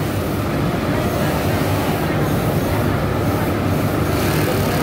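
Steady running din of industrial sewing machines: a low hum under a dense, fast rattle, with no break.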